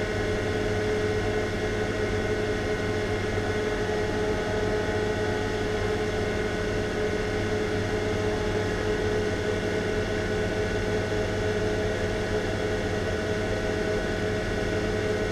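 Electric fan running steadily: an even hum with a steady mid-pitched tone.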